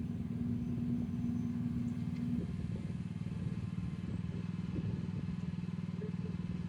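Mini excavator engine running steadily, with a steady hydraulic hum from the swing that stops about two and a half seconds in as the upper house is slewed back to straight.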